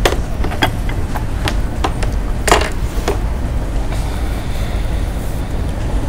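Steady low rumble of a ferry's engines, with scattered clinks and clatters of plates and cutlery as a tray of food is set down on a table. The loudest clatter comes about two and a half seconds in.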